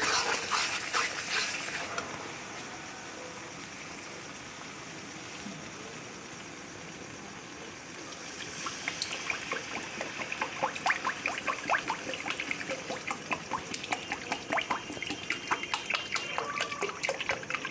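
Fish curry cooking in a pan: a steady hiss of sizzling and bubbling, louder in the first two seconds. From about eight seconds in come quick, irregular pops and crackles.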